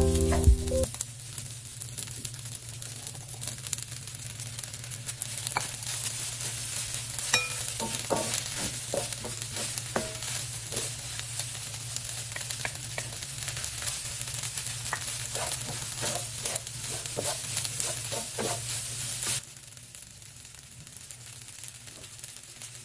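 Fried rice sizzling in a hot stainless-steel wok while a wooden spatula stirs and scrapes it, with scattered clicks and taps. About three seconds before the end the sizzling drops away to a much quieter hiss.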